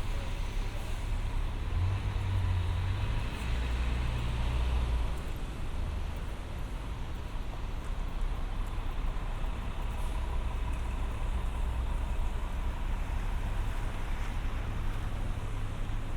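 City street traffic: a steady low rumble of passing cars and heavier vehicles such as trucks or buses, swelling about 2 to 5 seconds in.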